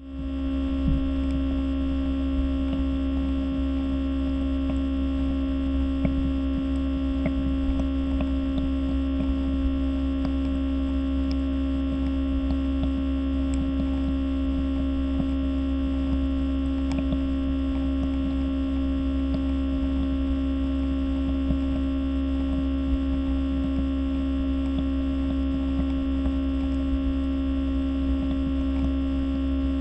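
Diffuser running, heard through a contact microphone pressed to its body: a steady, unchanging hum with a strong single tone and a low rumble beneath, and faint scattered ticks.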